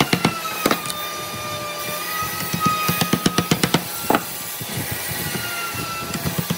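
Wooden mallet knocking on a lattice of interlocking notched wooden slats, driving the cross joints down to seat them. The knocks come in quick runs, the densest about three seconds in, with a single hard knock just after four seconds.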